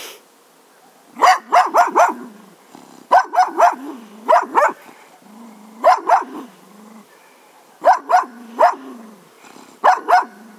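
English Cocker Spaniel barking in quick clusters of two to four barks, a cluster every second or two, with a low grumbling growl between the clusters.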